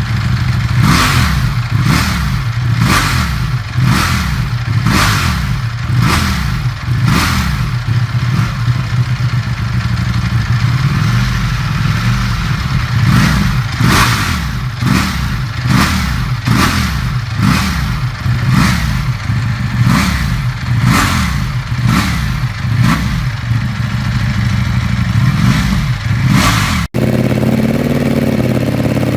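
Ducati Panigale V4's V4 engine through its stock exhaust, the throttle blipped over and over, about one sharp rev a second, with a calmer stretch in the middle. Near the end the revving stops abruptly and the engine runs steadily at idle.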